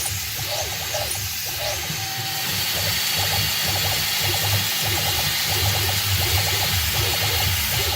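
Spindle of a PM-25 CNC milling machine running while a 13/64" drill plunges into metal at 12 IPM. There is a steady motor hum under a rough, choppy cutting noise and a high hiss.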